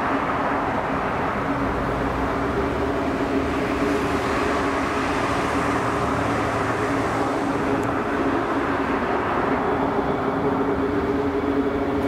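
F-15 fighter jet's engines on final approach: a steady jet drone with two low humming tones running under it.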